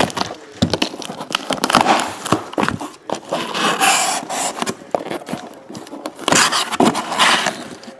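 Cardboard shipping case being opened by hand: packing tape and plastic wrap tearing and crinkling, and cardboard flaps scraping and knocking as they are pulled open and folded back, with two longer rasping scrapes about four and seven seconds in.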